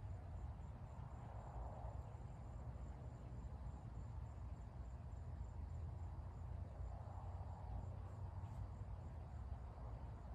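Crickets chirping faintly in a steady high pulse, about two or three chirps a second, over a low outdoor rumble.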